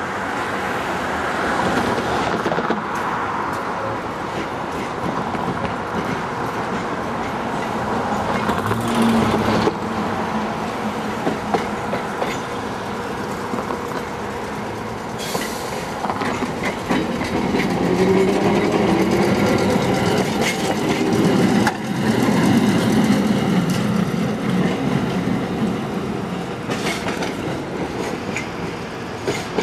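Electric heritage streetcar running along its track, heard from on board: wheels clicking over rail joints over a steady rumble, with a faint hum underneath. The ride gets louder about two-thirds of the way through.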